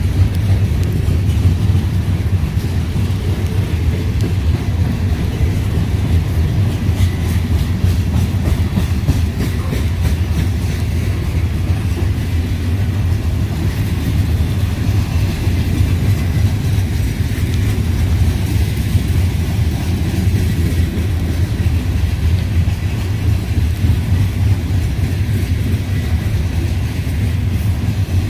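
Freight coal train's cars rolling steadily past with a continuous low rumble and faint clicking of wheels over rail joints.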